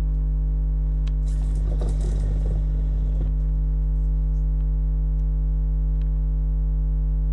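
Steady electrical mains hum from a plugged-in electric guitar and amplifier rig, left on with no notes played. A scratchy rustle runs from about one to three seconds in, and there are a few faint clicks.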